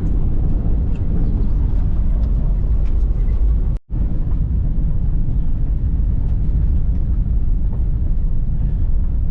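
Car driving on a dirt road: a steady low rumble of engine and tyres, broken by a brief gap about four seconds in.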